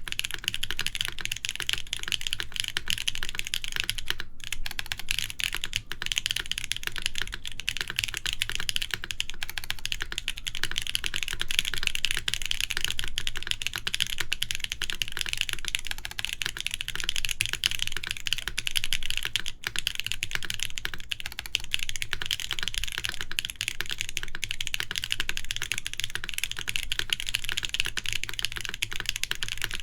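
Continuous fast typing on a Nayeon TKL mechanical keyboard with KTT Waverider switches, aluminium plate and GMK keycaps: a dense, steady stream of key clacks without pauses.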